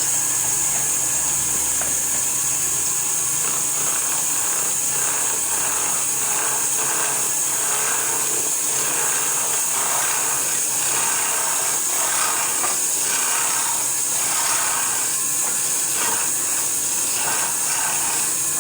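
Woodworking power tool running steadily: a strong, even high hiss with irregular rough scraping in the middle range.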